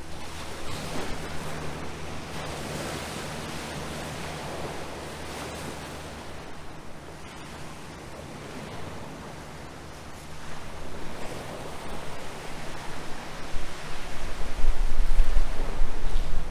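Waves washing against the rocks of the shore, with wind buffeting the microphone that grows louder and gustier near the end.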